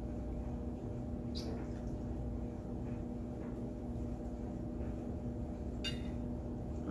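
Someone chewing a mouthful of steak, over a steady low hum, with two brief clicks, about a second and a half in and near the end.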